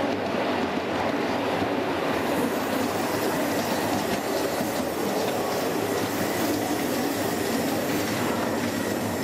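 Miniature railway passenger train running along the track, its carriage wheels rumbling and clicking over the rails, with a thin high wheel squeal from about two seconds in.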